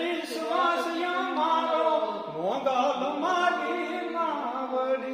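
A man singing an unaccompanied devotional chant, with long held notes that swoop up in pitch at the start of each phrase.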